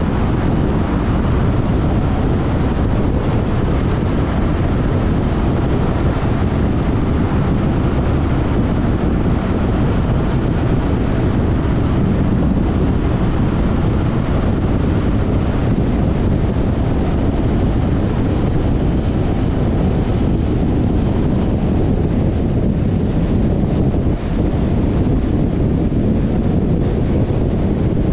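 Steady road and wind noise from a car driving at speed: tyre rumble and wind buffeting the microphone, with no marked change in level.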